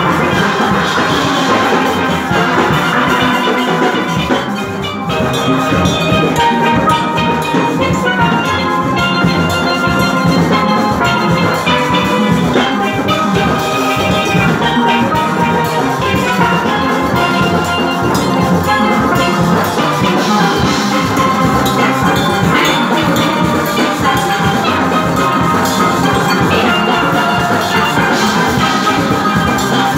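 Steel orchestra playing a panorama arrangement: massed steel pans with drums and percussion underneath, continuous and full.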